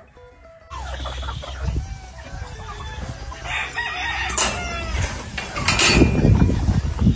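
Gamefowl chickens clucking, with a rooster crowing, after a music track cuts off within the first second. A low rumbling on the microphone builds and is loudest about six seconds in.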